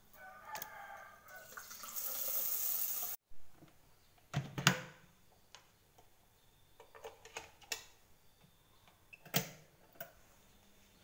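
Tap water running into the metal inner pot of an electric rice cooker for about three seconds and stopping abruptly. After that come scattered clunks and clicks of the pot, lid and switch of the rice cooker, the loudest a pair of knocks about four and a half seconds in.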